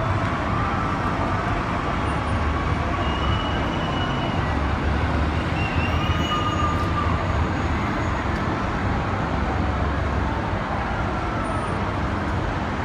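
Steady city street noise heard from high above: a constant traffic rumble, with faint distant calls from the celebrating crowd below rising and falling now and then.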